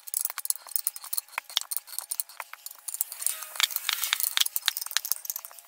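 Irregular metallic clicking and clinking from a wrench turning the nut of a crankshaft installer tool, drawing the crankshaft into the bearing of the small crankcase half that did not seat on its own. The clicks grow denser about halfway through.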